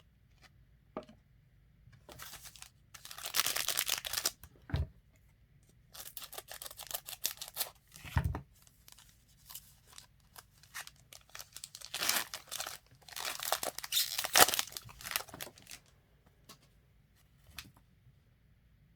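Panini Playbook football card pack wrapper being torn open and crinkled, in three bursts of tearing and rustling, with a couple of soft thumps in between.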